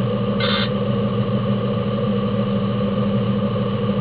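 Fire engine's engine running steadily at the fireground, a constant multi-pitched drone heard from inside the cab. A short high beep sounds once about half a second in.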